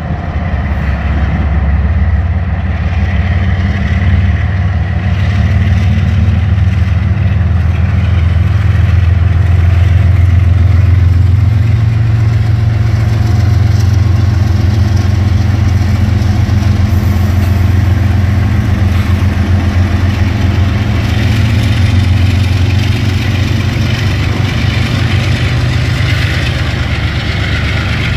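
Union Pacific diesel-electric freight locomotives pulling a train away and past close by, their engines running under load with a loud, steady low rumble. A rising hiss joins in over the last several seconds.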